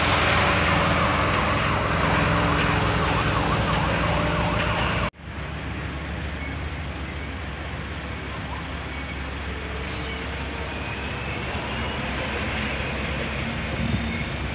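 Heavy trucks' diesel engines running, with a siren-like wailing over them. About five seconds in, this cuts off suddenly to the steady, quieter engine and road noise of a vehicle driving in traffic.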